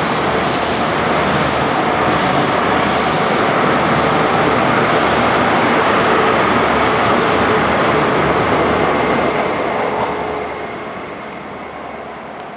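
CrossCountry HST (InterCity 125) pulling out and passing close by: wheels rumbling and clattering over the rail joints under the diesel power cars' running, loud and steady, then fading after about ten seconds as the rear power car draws away, leaving a faint whine.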